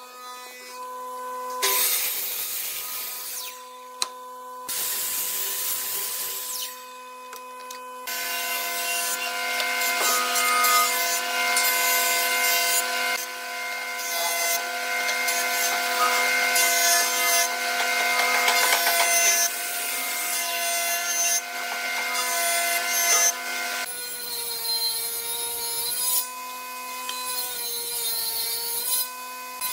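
Power woodworking machines cutting timber in short edited clips: brief bursts of a sliding miter saw cross-cutting a beam, then a long stretch of a jointer planing a block, then a table saw ripping it near the end. A steady motor whine runs under the cutting noise, wavering in the last part.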